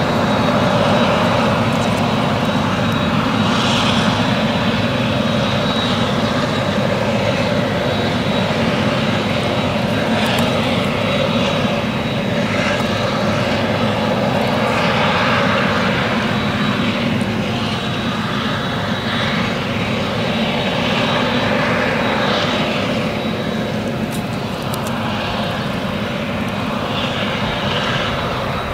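Claas Jaguar 970 self-propelled forage harvester working under load, its engine, chopper and Direct Disc cutter bar chopping whole-crop triticale, with the tractor and silage trailer running alongside. A steady, dense machine noise with a thin high whine over it.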